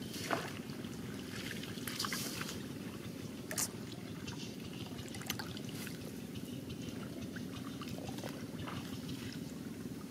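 Water splashing, trickling and dripping as a woven bamboo fish scoop is dipped into and lifted out of shallow muddy water, in short irregular splashes over a steady low background noise.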